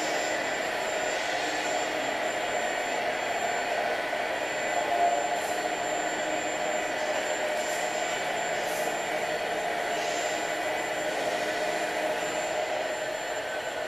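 Hydraulic pumps of radio-controlled scale crawler excavators running with a steady whine as the machines dig and swing loads of wood chips, briefly louder about five seconds in.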